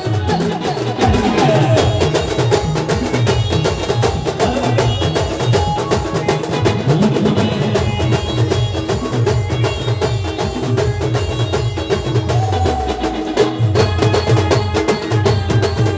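Band music: fast, dense drumming over a repeating bass figure, with a melody line above. Near the end the bass holds one long note, then the beat comes back in.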